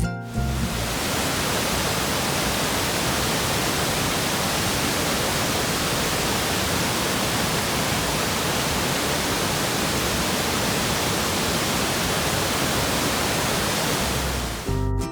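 Waterfall rushing: a steady, even roar of falling water that fades in just after the start and fades out near the end.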